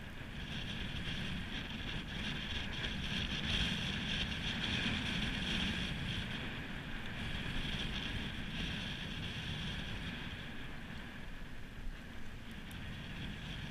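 Steady wind blowing across the microphone, with choppy sea washing against a concrete harbour wall. The noise swells a little in the middle and eases near the end.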